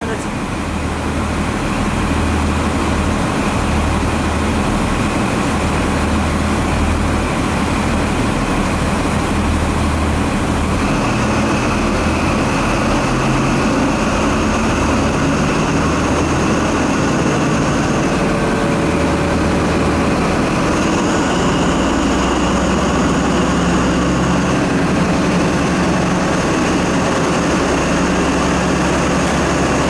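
Class 43 HST diesel power car's engine running loudly as the train sets off and pulls slowly away. A high steady whine joins the engine note about eleven seconds in and rises a step around twenty seconds in.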